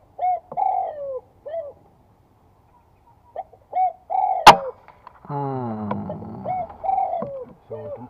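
A single sharp crack of an air rifle shot, firing a 14-grain slug, about four and a half seconds in. Doves keep up short, repeated, arching calls before and after it.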